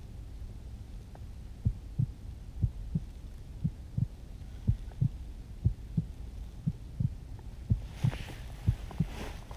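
Soft low thumps in close pairs about once a second, a heartbeat rhythm, starting about a second and a half in over a low steady hum, with a rustle near the end.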